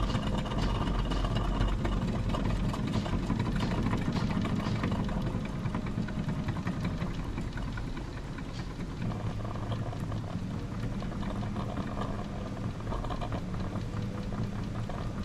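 Wilesco D21 model stationary steam engine running slowly on a little steam while it warms up: a steady fast chuff and hiss of steam with the engine working, a little quieter from about halfway. The cylinder is still cold, so much of the steam condenses to water.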